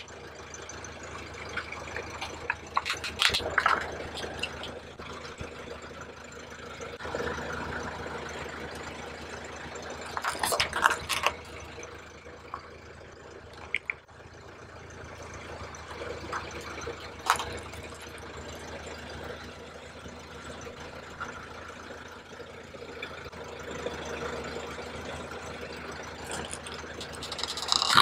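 A car tyre rolling slowly over plastic toys, the plastic cracking and crunching under it about three seconds in, about ten seconds in, about seventeen seconds in, and loudest near the end. A steady low engine hum runs underneath.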